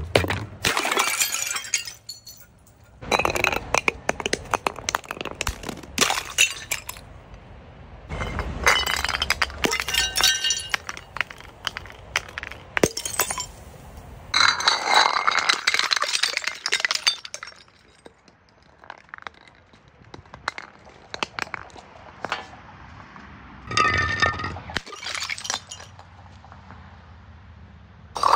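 Glass bottles smashing one after another, about half a dozen crashes, each followed by ringing glass and clinking shards.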